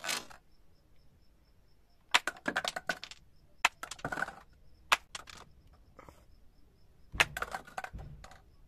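Four bursts of sharp clicks and clatter, like small hard pieces knocking together, about two, three and a half, five and seven seconds in.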